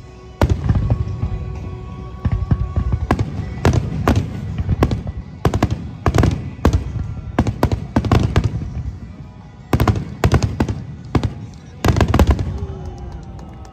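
Fireworks shells bursting in a rapid, irregular barrage of loud booms, each trailing off in echo. The first loud bang comes about half a second in, with quick crackling clusters of bursts around ten and twelve seconds in.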